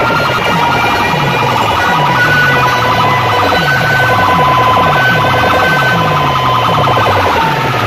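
Large DJ sound-box system playing very loud, with siren-like wailing tones over a bass that drops in pitch again and again, about twice a second.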